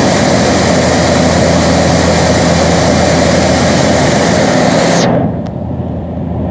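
Cabin noise of a DHC-6-300 Twin Otter climbing out after take-off: its two Pratt & Whitney PT6A turboprop engines and propellers give a steady loud drone with a low hum. About five seconds in, the sound suddenly turns muffled and quieter.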